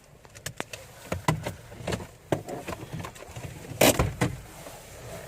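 A run of clicks and knocks inside a car, with one louder thump about four seconds in.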